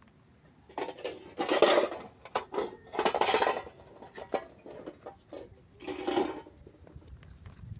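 Small toy pieces and packaging being handled: three bursts of rustling with sharp clicks and clatter, the first about a second long.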